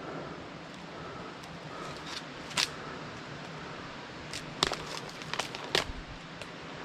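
Footsteps through leaf litter and debris, with a single sharp crack before halfway and then several more cracks and snaps in quick succession.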